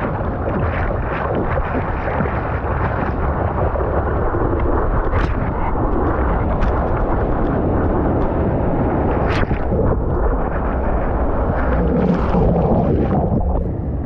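Wind buffeting a camera microphone at water level, with water lapping and splashing against a surfboard and a few sharp splash clicks.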